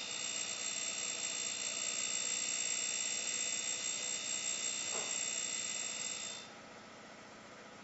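Darex E90 end mill sharpener running with a steady high whine while an end mill's flute is ground against its grinding wheel. The sound drops to a fainter level about six and a half seconds in.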